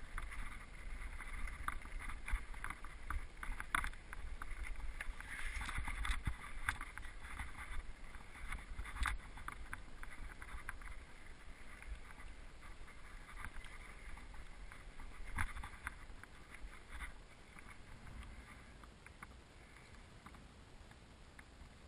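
Mountain bike rolling over a stony dirt singletrack: a run of rattling clicks and knocks from the bike over the stones, with wind rumble on the microphone. It grows quieter over the second half.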